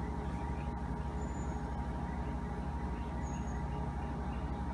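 Steady low machine hum with an even drone and a faint constant whine above it, unchanging throughout.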